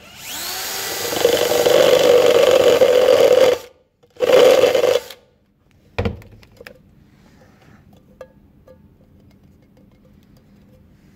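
Electric drill spinning up and boring a hole through the metal bottom of a tin can: a long burst of about three and a half seconds, then a short second burst. A single sharp knock follows about six seconds in.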